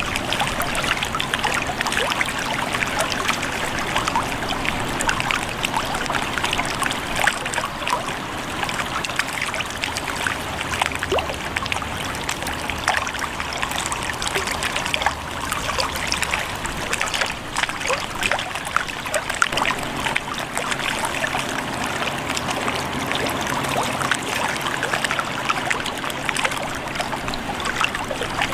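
Lake water trickling and lapping: a steady, busy run of small splashes.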